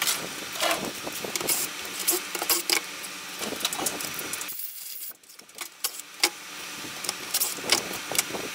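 Tools and plastic parts knocking and clattering on a workbench as a string trimmer's motor housing is handled, a series of sharp clicks and knocks, with a brief hush about five seconds in.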